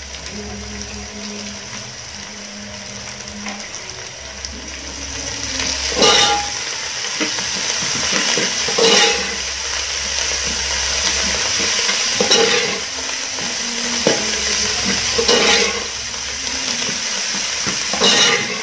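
Sliced onions and chopped coriander sizzling steadily in a metal pot while a metal spoon stirs them, scraping and knocking against the pot every few seconds.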